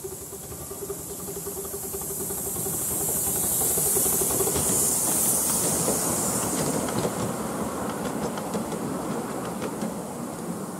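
7¼-inch gauge miniature steam train passing: the locomotive's steam hiss swells to its loudest about halfway through as it goes by, then the coaches' wheels click over the rail joints as the train fades away.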